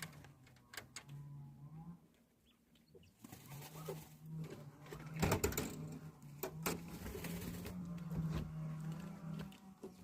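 Quail giving a low, droning call while dust bathing, shifting between two pitches and pausing about two seconds in. Scratchy clicks and rustles of dust being tossed sound over it, loudest about halfway through.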